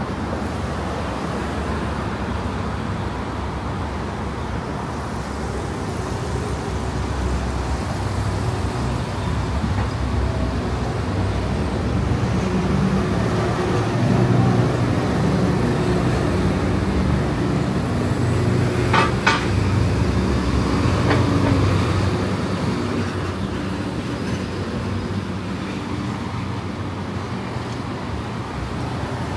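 Street traffic: cars passing on a busy multi-lane road, with a low engine rumble swelling through the middle and easing off near the end. A brief sharp sound comes about two-thirds of the way in.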